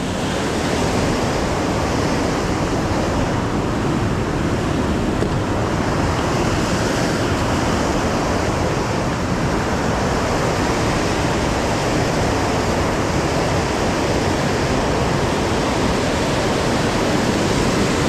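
A river in flood, high and muddy, rushing through white-water rapids: a steady, unbroken rush of water.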